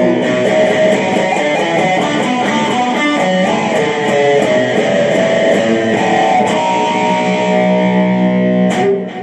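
Electric guitar playing the song's instrumental ending, a run of changing notes and chords, then one held chord that cuts off sharply near the end.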